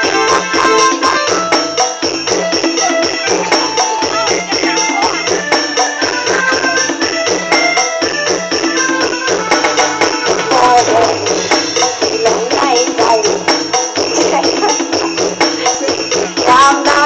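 Loud luk thung (Thai country music of the Isan region) played for a stage dance show: a steady, fast beat with percussion and a melody line, with some voice over it.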